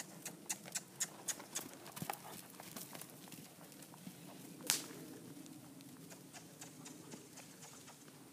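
Hoofbeats of an Oldenburg stallion moving loose on arena sand, a quick even beat of about four strikes a second that fades after the first couple of seconds. About four and a half seconds in there is one sharp crack, the loudest sound.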